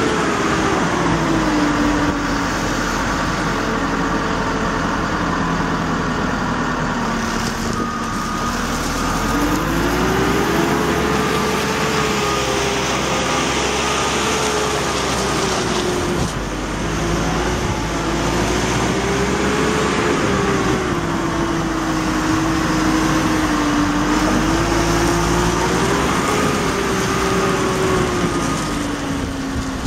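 Caterpillar TL943 telehandler's diesel engine running as the machine drives and turns, its pitch rising and falling several times with the throttle.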